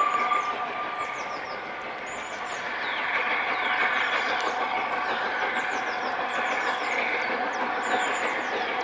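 LNER A2 class steam locomotive 60532 'Blue Peter' approaching out of sight, a steady noise that grows louder from about two seconds in and then holds, just after the last of its whistle fades in the first second. Birds chirp throughout.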